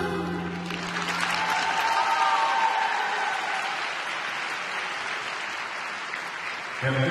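Arena crowd applauding steadily at the end of a figure skating program. The last held note of the program music fades out over the first two seconds.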